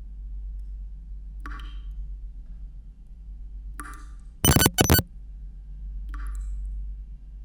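Sound-design effects over a steady low electrical hum: a few soft short swishes, and two sharp metallic clinks in quick succession a little past halfway.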